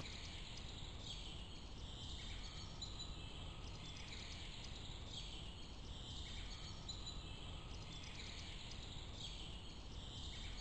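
Faint outdoor ambience with high-pitched chirping that swells and fades about every two seconds over a low, steady hiss.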